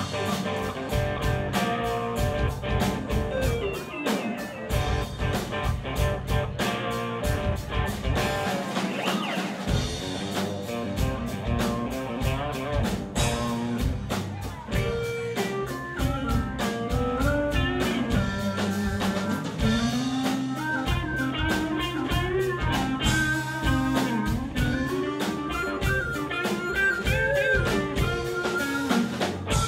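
Live rock band playing an instrumental: drum kit, electric guitar and keyboards, with a lead line that bends in pitch in the second half.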